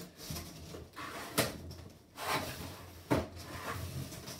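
Flaps of a large cardboard box being lifted and handled, with two sharp knocks a little under two seconds apart and cardboard rustling between them.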